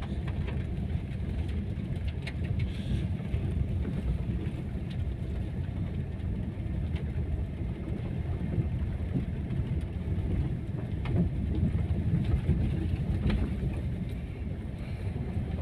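Daihatsu Ayla's 1.2-litre four-cylinder engine and its tyres on loose stones, heard inside the cabin as a steady low rumble while the car creeps along a rough gravel lane. A few sharp clicks of stones come through here and there.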